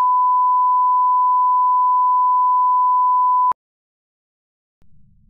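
Steady 1 kHz line-up test tone of the bars-and-tone kind, a pure beep that cuts off suddenly about three and a half seconds in. A faint low rumble comes in near the end.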